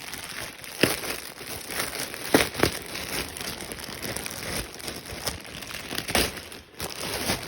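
Packaging being crumpled and torn open by hand: continuous crinkling rustle with several sharper crackles, the loudest about two and a half seconds in.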